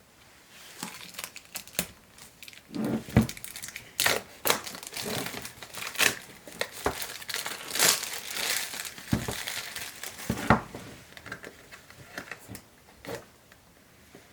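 Packaging being torn open and crumpled by hand, with irregular crinkling, rustling and sharp snaps that thin out over the last few seconds.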